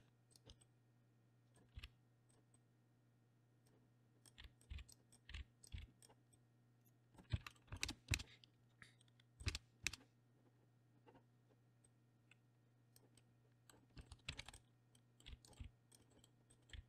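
Faint, scattered computer keyboard keystrokes and mouse clicks, coming in small clusters about seven, nine and a half and fourteen seconds in, over a steady faint low hum.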